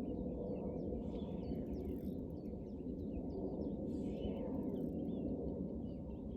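Small birds chirping, many short calls scattered throughout, over a steady low background rumble.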